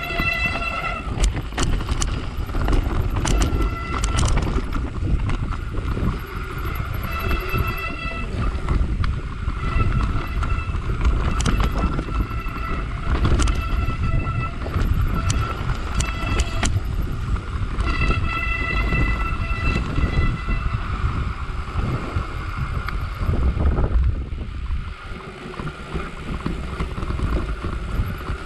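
Mountain bike descending a rough, rocky trail: wind buffeting the camera microphone, tyres rumbling and the bike rattling and clattering over bumps. A high squeal from the bike comes and goes several times.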